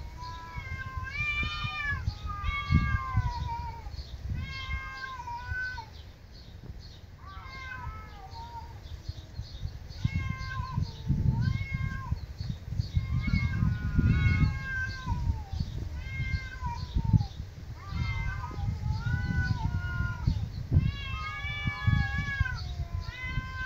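Two cats meowing back and forth in a long run of short calls, a new meow about every second, some rising and some falling in pitch. A low rumble sits underneath.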